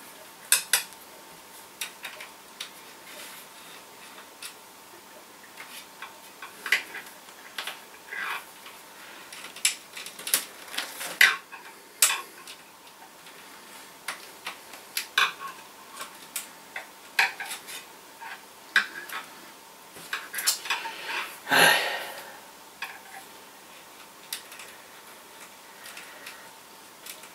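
Irregular small metallic clicks and clinks of hand-wiring a metal light fitting: wire ends, terminal screws and a thin screwdriver knocking against the fixture's metal base. About three-quarters of the way through comes one longer, louder scrape.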